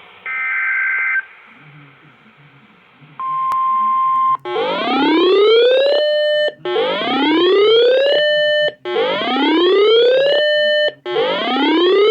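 NOAA Weather Radio alert sequence: the last one-second screech of the SAME digital header, a short pause, then the steady 1050 Hz warning alert tone for about a second. From about four seconds in, a weather radio alarm sounds: an electronic whoop that rises in pitch, holds briefly and repeats about every two seconds.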